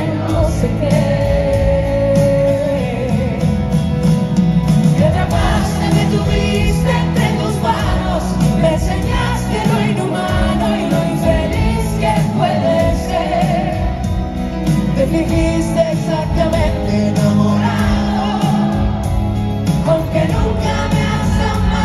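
Live pop band music with electric guitars, keyboards and drums, and a singer's voice carrying the melody.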